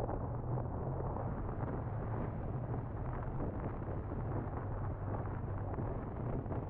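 BMW R1200R boxer-twin engine running steadily while riding, under wind rushing over the camera's microphone.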